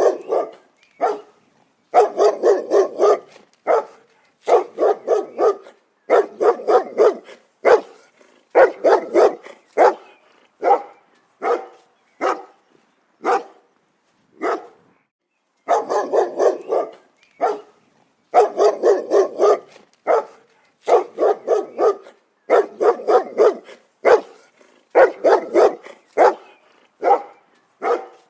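A dog barking in quick runs of several barks, about four a second, with short pauses between the runs.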